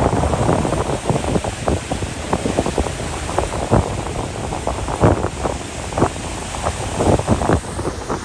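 Wind buffeting the microphone over surf washing against the boulders of a rock breakwater, in short, uneven rushes.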